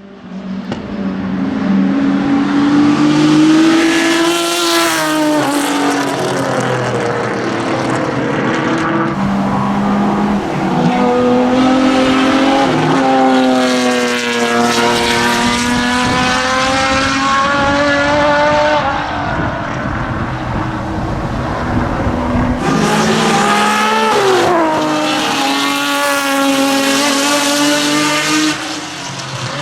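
Ford Capri RS 3100 race car's V6 engine running loud under hard acceleration. Its pitch climbs through each gear and falls on the changes and lifts, with a sharp fall in pitch about three-quarters of the way through.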